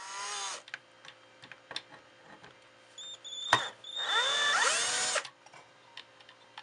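Power drill with a star bit spinning in two short runs to back out the actuator stop screw of an old hard drive. The motor whine rises in pitch as it spins up. The first run ends about half a second in, and the second runs from about four to five seconds, with clicks and a sharp knock between them.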